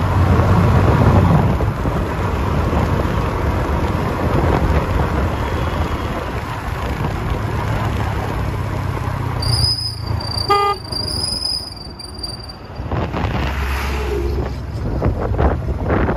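Road vehicle noise with a steady low rumble and rushing air. About ten seconds in, a high whistle-like tone holds for about three seconds, and a short horn toot sounds in the middle of it.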